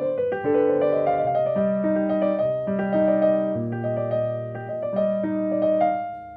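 Background piano music: a gentle melody over slow, sustained bass notes, fading out near the end.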